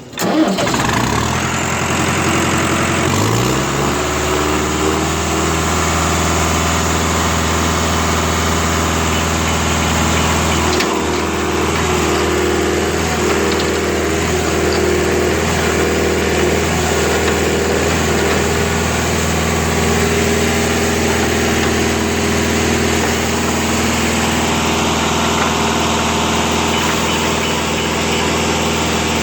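Olin 575 concrete pump's engine starting up and rising to a steady run. About eleven seconds in there is a sharp clunk, and after it the engine note pulses regularly under load.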